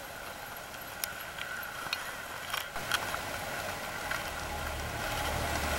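Steady hiss with about half a dozen light clicks and clinks in the first three seconds, and a low rumble building near the end.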